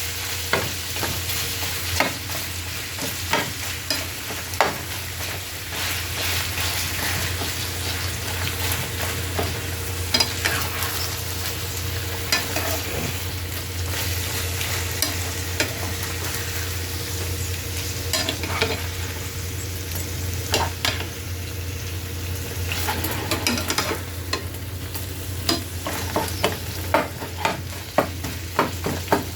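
Ground beef with onions and jalapeños sizzling in a pan while a spatula breaks up and stirs the meat, its scrapes and taps on the pan coming in clusters, thickest near the start and the end. A steady low hum runs underneath.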